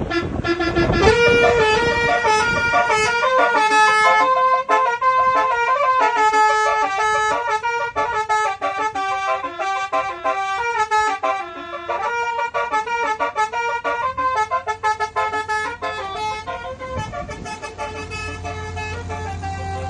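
MSK Romeo 2.0 twelve-trumpet telolet air horn playing a tune of quick stepped notes, several trumpets sounding together, run on low air pressure from a 90 psi tank. A steady low hum joins about two-thirds of the way through.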